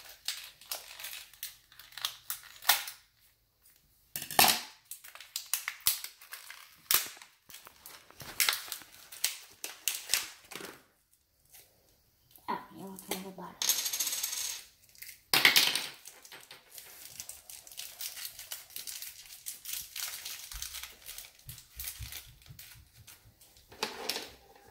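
Hands opening a Shopkins blind bag and handling the small plastic toy pieces inside: crinkling wrapper and a long run of light clicks and clatters, with a short rustle about fourteen seconds in.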